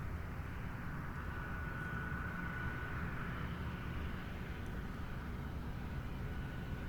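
Jet airliner on landing approach, heard from a distance: a steady low rumble with a thin, high engine whine that comes in about a second in, fades, and returns near the end.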